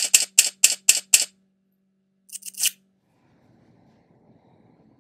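Logo intro sound effect: a quick run of six sharp, shutter-like clicks, about four a second, over a low hum, then a short cluster of three more about two seconds in, the last sliding down in pitch. After that only faint room tone.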